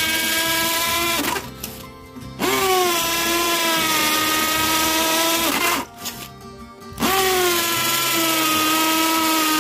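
Cordless drill in hammer-drill mode boring into a solid clay brick with a 10 mm masonry bit: the motor whines with a hammering rattle. It runs in three bursts, stopping twice for about a second, and its whine drops in pitch as each burst starts.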